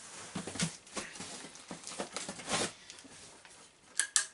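Rustling and scraping of packaging as hands rummage inside a cardboard parcel, ending with two sharp clicks as a small metal part is lifted out and handled.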